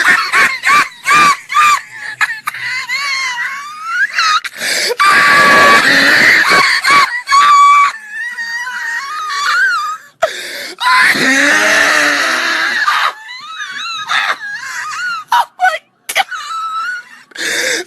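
A run of loud, shrill screams and shrieks, very high-pitched and wavering up and down, broken by short gaps.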